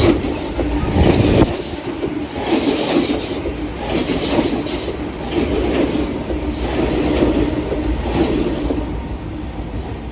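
Metro-North M7 electric multiple-unit train passing through at express speed: steady wheel and rail rumble with repeated clattering surges as the cars go by, fading near the end.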